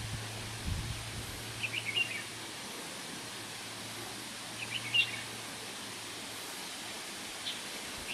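Outdoor ambience: small birds chirping in short quick clusters of high notes, three times, over a steady background hiss with a faint low hum.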